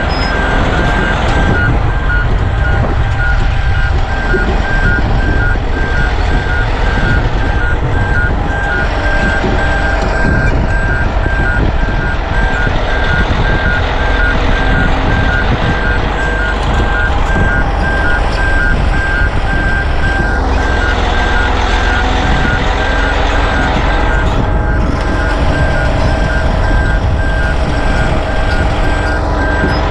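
Heavy diesel machinery running steadily under load, with a backup alarm beeping in an even, unbroken rhythm at one pitch. This is the travel alarm of the tracked Peterson 4710D grinder or of the heavy-haul rig as it moves during loading.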